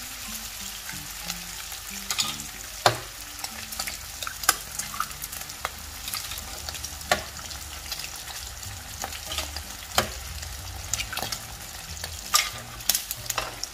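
Pork belly frying in hot oil in a nonstick pan, a steady sizzle, with several sharp cracks as eggs are broken and dropped into the fat one after another.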